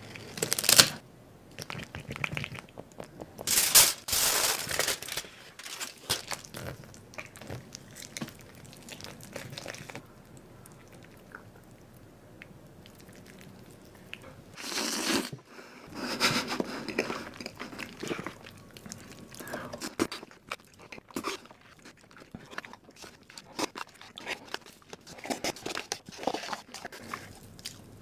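Food-preparation noises in a kitchen: scattered crunches, rustles and small knocks, with longer noisy scraping bursts a few seconds in and again around the middle.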